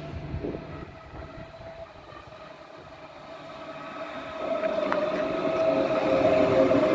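DB Class 423 S-Bahn electric multiple unit pulling into the platform. A faint low rumble at first, then from about four seconds in a steady whine of several tones that grows loud as the train draws near.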